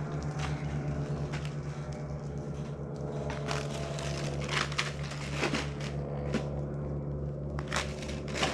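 Snow crunching underfoot, an irregular run of short crackling crunches over a steady low hum.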